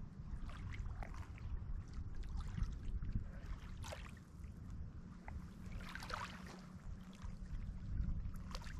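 Small waves of Lake Superior washing and splashing on the shore in irregular surges, over a steady low rumble of wind on the microphone.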